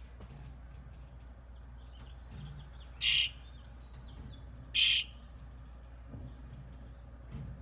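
A bird trapped inside a kitchen exhaust vent, chirping: two short, loud, high chirps about two seconds apart, with a few fainter chirps just before the first.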